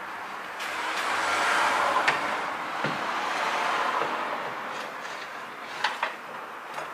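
A rushing noise swells and fades over a few seconds. Several sharp metallic clinks, two close together near the end, come as the metal oil bath air filter housing of a Land Rover Series is handled and set into place in the engine bay.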